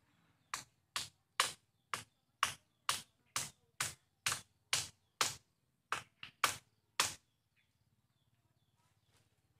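A tool striking the bamboo frame, about fifteen sharp knocks at roughly two a second, with a brief pause before a last quick flurry; the knocking stops about seven seconds in.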